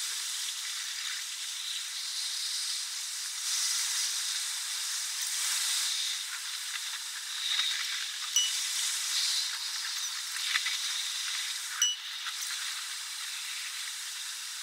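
Train running, heard from the locomotive cab with the sound sped up tenfold, so the rumble of wheels on rails becomes a steady high hiss. A few sharp clicks come through, about eight and twelve seconds in.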